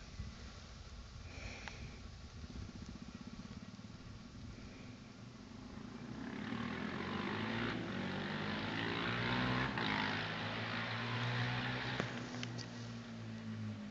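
Yamaha TT-R250 single-cylinder four-stroke engine through a Pro Circuit slip-on exhaust, heard coming closer: it grows louder from about six seconds in, its note rising and falling, is loudest a few seconds later, then eases off near the end.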